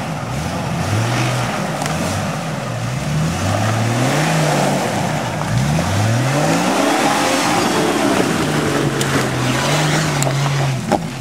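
Jeep Cherokee engine revving up and down repeatedly as it is driven through deep mud, with one long rise and fall in pitch about halfway through.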